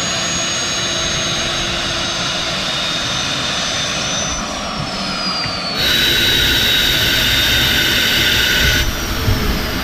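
Homemade turbojet built around a large 100 mm turbocharger running with a steady jet roar and a high turbine whine. The whine slides down in pitch about halfway through and again near the end. The sound turns louder and closer about six seconds in.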